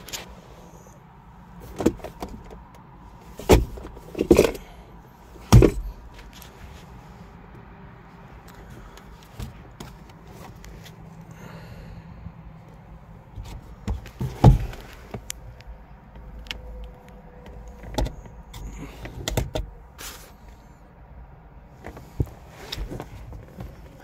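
Handling noises inside a car's cabin: scattered sharp clicks and knocks from interior trim being worked, such as the sun visor and its vanity-mirror cover. Four loud ones come in the first few seconds and another loud one about halfway, over a faint steady background.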